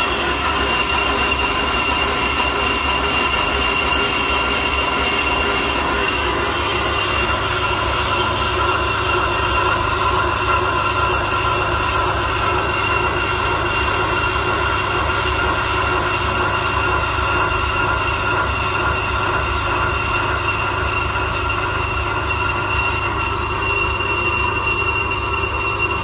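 Ammco bench brake lathe turning a Kia Rio brake disc, the cutting bits shaving the disc's faces. A steady high metallic ringing squeal sits over the hum of the lathe's spindle drive.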